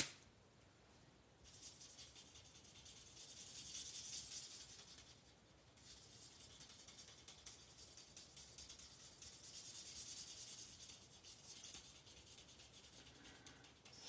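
Faint scratchy rubbing of a Stampin' Blends alcohol marker's tip stroking across cardstock as a leaf is coloured in, easing off briefly about five seconds in. A single sharp click right at the start.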